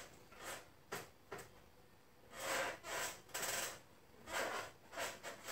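Hands rubbing across the skin of the thigh in cross-fiber soft-tissue massage of the quadriceps: a string of short rubbing strokes, each under a second, with brief pauses between.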